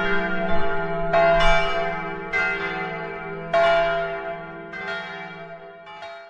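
Church bells ringing, a fresh strike about every second, each ringing on under the next, dying away near the end.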